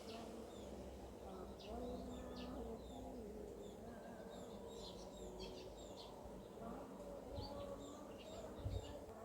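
Birds calling in the background: many short high chirps repeating over lower held call notes that rise and fall. A soft low thump near the end.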